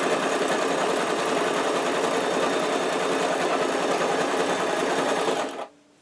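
Brother JS-23 household sewing machine sewing a wide zigzag stitch, running steadily without knocking, then stopping abruptly about five and a half seconds in. The even run means the shuttle no longer binds.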